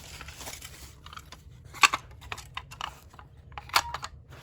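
Packaging being handled and opened during an unboxing: crinkling and crackling with scattered sharp clicks, two of them louder, about two seconds in and near the end.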